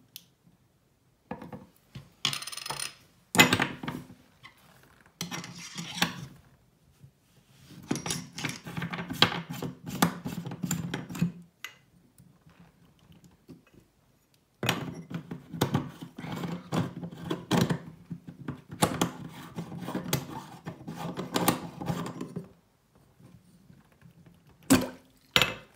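Chrome parts of an Oras single-lever bathroom tap clinking and scraping against each other and the tap body as the handle parts are fitted over the cartridge spindle. The sound comes in three stretches of rattling with quiet gaps between, and there are two sharp clicks near the end.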